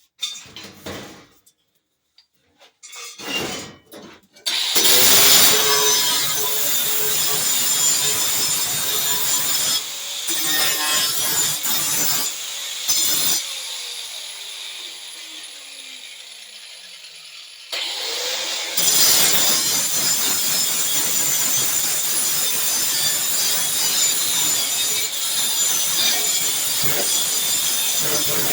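A handheld grinder cleaning the rusty sheet metal of a car's rear fender down to bare steel for welding. After a few knocks it starts up and runs steadily. About halfway through it eases off and spins down with a falling pitch. It then starts again and keeps grinding.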